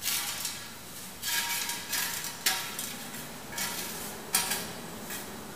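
Metallic clanking and clattering: about six sharp hits spread over roughly four and a half seconds, each ringing briefly.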